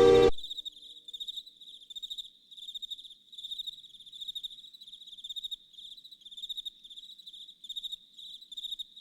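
Cricket chirping: short, high-pitched pulsed chirps repeating about one and a half times a second. A loud held tone cuts off sharply at the very start.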